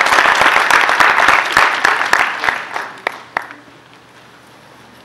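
Audience applause: dense clapping that thins out over the first three seconds, with a few last claps about three and a half seconds in, then quiet room tone.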